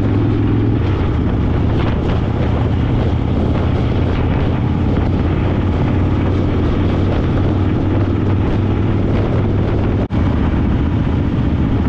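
Harley-Davidson Fat Boy's V-twin engine running steadily while riding along, with wind rushing over the microphone. The sound drops out for an instant about ten seconds in.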